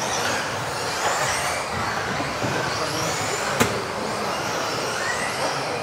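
Several electric off-road RC cars racing together, their motors whining up and down in pitch as they accelerate and brake, overlapping. A single sharp knock sounds about three and a half seconds in.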